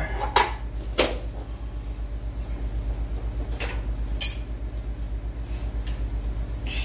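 Kitchen handling knocks: two sharp metal knocks about half a second apart near the start as a spoon and an emptied tin can are set down on the counter, then a couple of lighter clicks. Under them runs a steady low hum that pulses several times a second.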